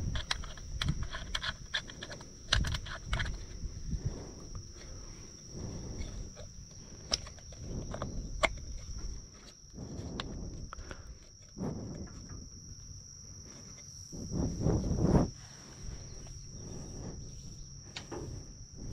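Insects trilling on one steady high note throughout, over irregular footsteps and rustling clicks, with a few louder low rumbles, the strongest about fifteen seconds in.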